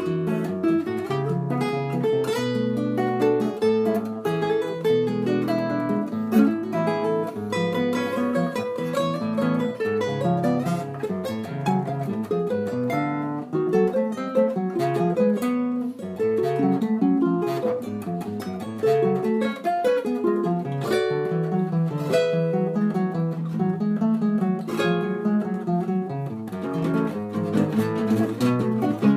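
Acoustic guitar music, plucked and strummed, with notes and chords changing steadily throughout.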